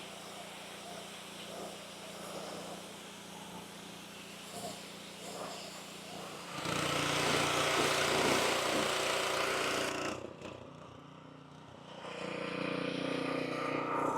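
Honda GX160 engine of a Simpson pressure washer running steadily. About halfway in the trigger is pulled and a loud water spray hisses for about three seconds, drops away, then starts again near the end.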